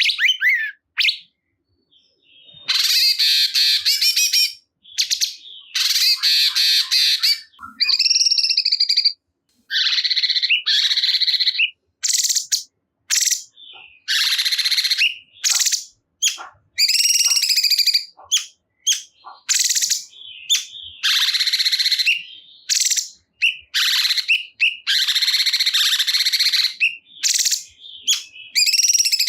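Cungkok songbird singing in long, fast, chattering phrases, one after another with short breaks between them.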